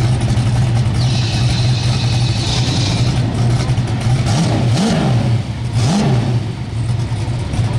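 Drag car engine idling loud and steady, revved up and back down in three quick throttle blips about halfway through.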